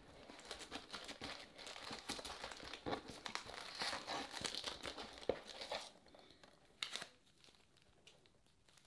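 Foil trading-card pack wrappers crinkling and rustling as they are handled and lifted out of a cardboard box, with irregular crackles and a few sharp clicks; the crinkling dies down after about six seconds.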